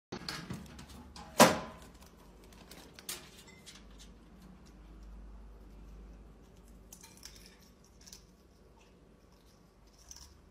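Stainless-steel roll-top bread bin being pushed open by a parrot's beak: a few light metallic clicks, then one sharp clank about a second and a half in as the lid rolls back. After that, faint small clicks and rustles as the bird handles a ring-shaped bread roll.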